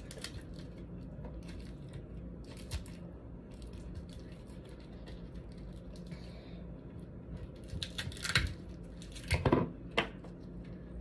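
Snow crab shells being cracked and picked apart by hand over a plastic food container: scattered small clicks, then a few louder cracks and crunches about eight and nine and a half seconds in, over a faint low hum.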